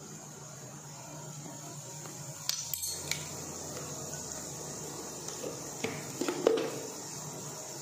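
Spoon clinking against a plastic container and the kadai as chopped chilli is added to frying onions, a couple of sharp clicks about halfway through and a louder cluster near the end. Under it, onions in hot oil sizzle at a low, steady level.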